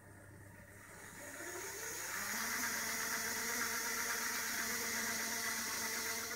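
Small electric motor and gearing of a model railway turntable starting up about a second in. It whines up in pitch, then runs steadily with a hiss as the deck turns.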